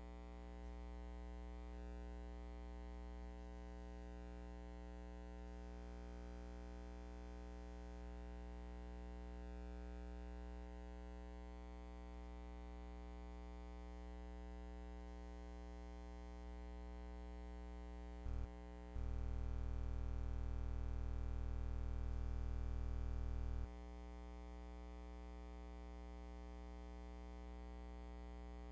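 Steady electrical hum with a buzz, many even tones held without change. It gets louder for about five seconds about two-thirds of the way through, just after a short blip, then drops back.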